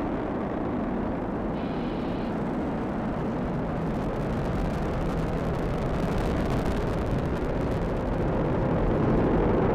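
Falcon 9 first stage's nine Merlin 1D engines during ascent: a steady deep rumble with crackling in the second half, growing a little louder toward the end.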